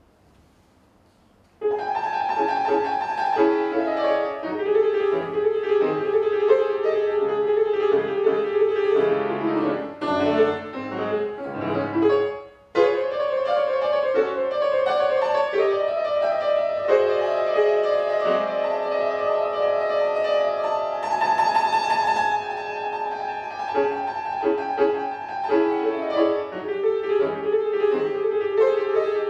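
Solo piano playing a classical piece. It begins after a short quiet pause about two seconds in, with a brief break in the playing about halfway through.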